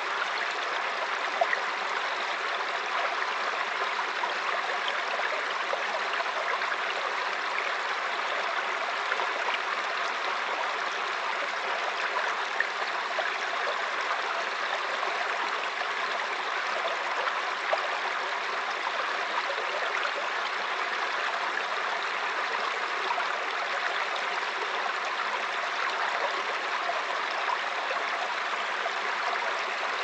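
Small forest stream running over rocks and a low cascade: a steady rush of flowing water with scattered small splashes.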